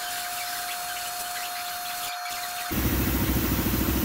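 Sandblast cabinet gun blasting the starter end cap: a steady hiss with a constant whistle, broken off briefly about two seconds in. Near the end the blasting stops, and a louder, low, rapidly pulsing machine sound starts running in its place.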